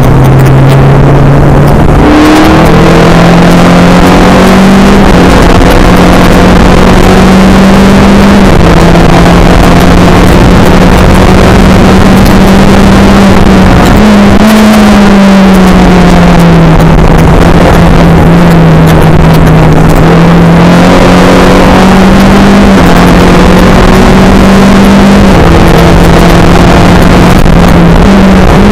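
Skip Barber race car's engine running hard at racing speed, recorded very loud. Its pitch steps up and down abruptly several times as gears change, and glides down once near the middle as the car slows, with road and wind noise underneath.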